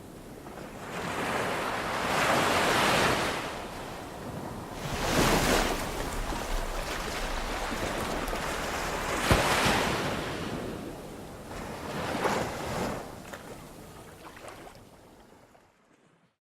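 Waves washing in and breaking, the rushing hiss swelling and dying away every three to four seconds, with wind rumbling on the microphone. The sound fades out near the end.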